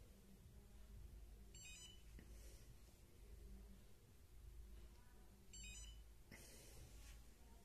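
Near silence, broken twice by faint short electronic beeps about four seconds apart: the FlySky FS-i6S transmitter beeping as its touchscreen settings are tapped.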